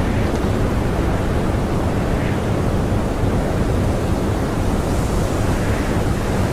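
Strong blizzard wind blowing steadily, a dense, even rushing noise heaviest in the low end.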